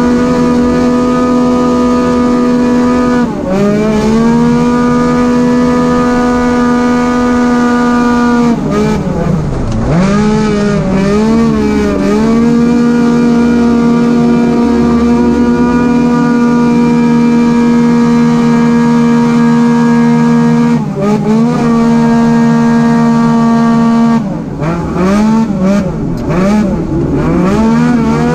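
Arctic Cat side-by-side race UTV's engine heard from inside the cockpit at full throttle, holding high, steady revs. The revs dip briefly and climb back a few times, about 3 seconds in, again around 9 to 12 seconds, once more about 21 seconds in, and in quick succession near the end.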